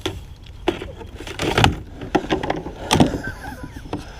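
Kayak hull and paddle knocking and scraping as someone climbs in: several irregular sharp knocks, the loudest about a second and a half and about three seconds in.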